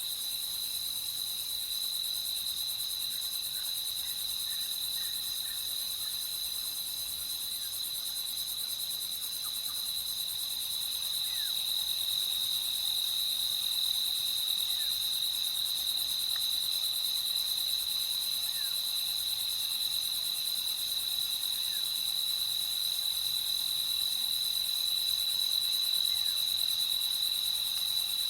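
A steady chorus of crickets: one continuous high trill, with more insect noise shimmering above it. A few faint, short downward chirps come through now and then.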